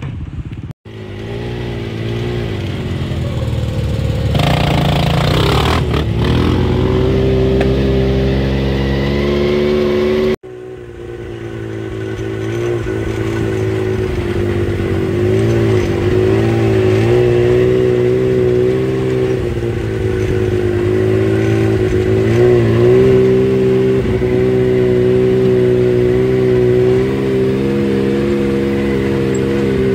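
Off-road vehicle engines running at a steady mid throttle, the pitch rising and falling a little with the throttle. The sound cuts off abruptly twice, about a second in and about ten seconds in, where separate clips are joined.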